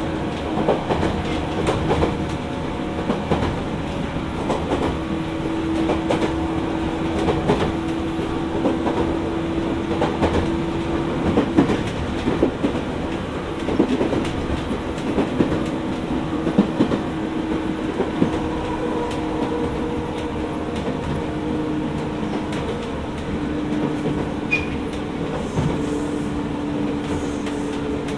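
Jōmō Electric Railway 700 series electric train (ex-Keio 3000 series) running between stations. Its wheels clack over rail joints, under a steady low hum that comes and goes.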